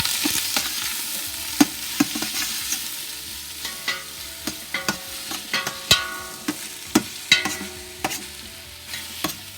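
Chopped onion and ginger sizzling in hot oil in a pan while a utensil stirs them, with many sharp clicks and scrapes against the pan. The sizzle slowly fades.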